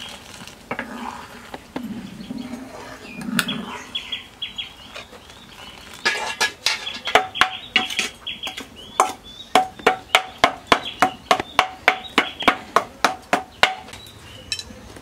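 Metal ladle clinking against a stainless-steel bowl while stirring in it, a quick run of ringing strikes at about four a second that starts about six seconds in and stops shortly before the end.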